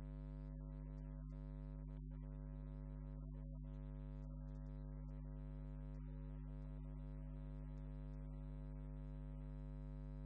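Steady electrical mains hum, a low buzz with a ladder of overtones, unchanging throughout, with faint music underneath.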